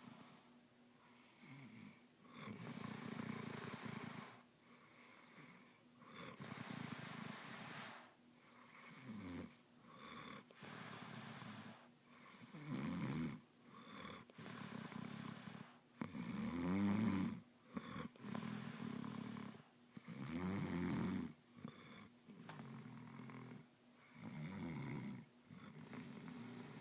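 Snoring: a rasping snore roughly every two seconds, some strokes deeper and rattling, in a steady rhythm.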